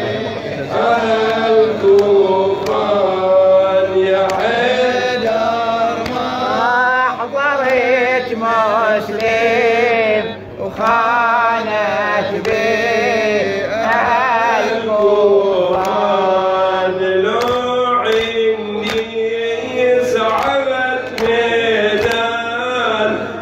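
A nawha, an Arabic Shia mourning lament, chanted by a male voice in long, wavering, ornamented melodic phrases, with a steady beat of thumps keeping time.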